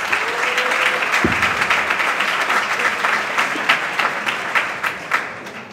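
Theatre audience applauding, a dense patter of many hands clapping that dies away near the end, with one low thump about a second in.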